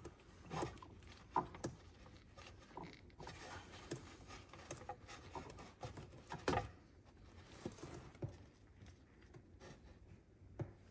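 Scattered light clicks, taps and handling noises of hand work on old fuel injectors being pulled out of the fuel rail, with a sharper knock about six and a half seconds in.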